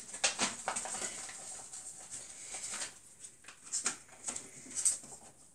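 A paper instruction leaflet being folded and handled, rustling and crinkling in uneven bursts, louder near the start and again about four and five seconds in.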